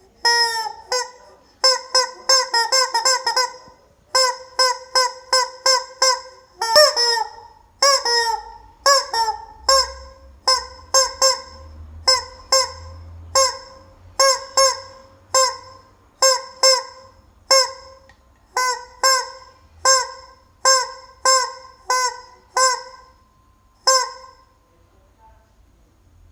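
Rubber chicken squeeze toy squawking over and over as it is squeezed. There are quick runs of several squeaks a second at first, then an even squeeze-and-squawk about every 0.7 s, stopping shortly before the end.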